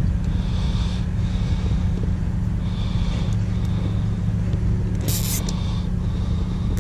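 Steady low engine rumble of heavy trucks and machinery at a neighbouring concrete plant. About five seconds in, a short rasp as a nylon zip tie is pulled tight.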